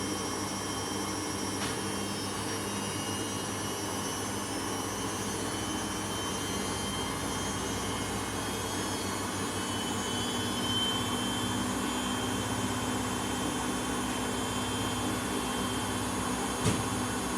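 Samsung washing machine running with a loud, steady whirring drone, the abnormal noise of the machine. A steady low hum sets in about halfway through, and there is a single knock near the end.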